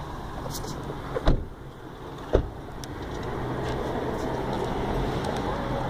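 Outdoor street noise with traffic running steadily, broken by two sharp knocks about a second apart; the noise grows a little louder after them.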